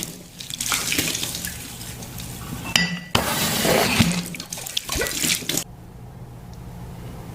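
Water running and splashing, as from a kitchen tap, in two long spells with a few sharp clicks. It stops a little past halfway, leaving a steady low hum.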